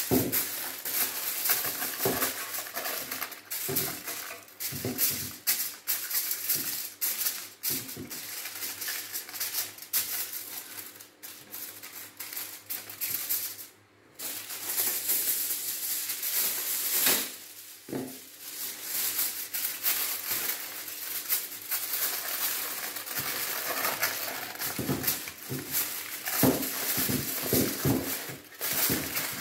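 Aluminium foil crinkling and rustling in uneven bursts as it is pressed and folded into a metal smoker drip tray, with occasional clicks and knocks; a short pause about fourteen seconds in.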